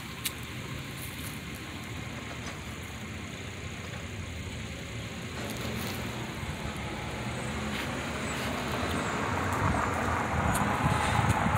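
Road traffic from a nearby street, a steady rush of passing cars that grows louder over the last few seconds.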